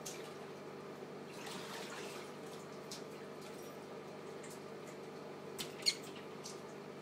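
Quiet indoor room tone with a steady low hum, a soft rustle, scattered faint ticks, and two sharp clicks close together about six seconds in.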